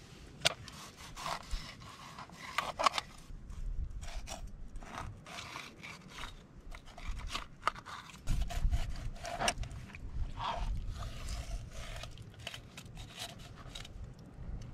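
Kitchen knife cutting and scraping through a whole fish's scaly skin and flesh on a plastic cutting board, with irregular clicks and scrapes of the blade and the fish being handled. A low rumbling handling noise comes in about eight seconds in.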